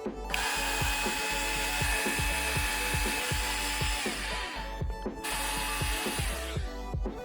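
A small electric power tool, such as a drill/driver, runs at steady speed for about four seconds, stops, then runs again more briefly; each time its pitch falls as the motor winds down.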